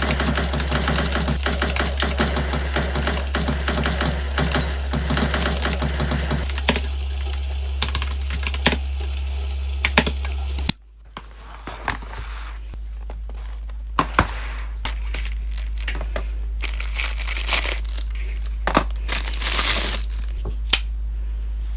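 Fast, steady typing on a keyboard over a low hum, cut off suddenly about halfway through. After it come the crinkling and rustling of plastic packaging being opened, with scattered taps and clicks.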